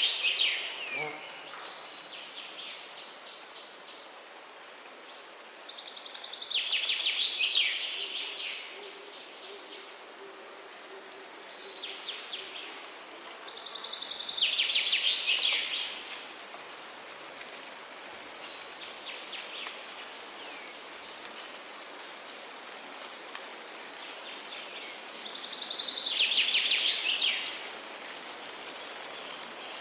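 A wild bird repeating a fast pulsed trill, each about a second and a half long, four loud times with fainter trills between, over a steady high hiss.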